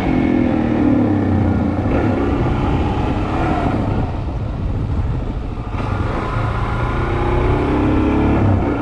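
Suzuki DR-Z400S single-cylinder four-stroke engine running as the motorcycle is ridden at low speed, its note dipping near the start and rising again over the last couple of seconds.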